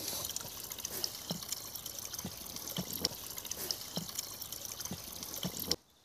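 Spring water trickling from the end of a rusty metal pipe and splashing onto wet ground, with many small splashes. It cuts off suddenly near the end.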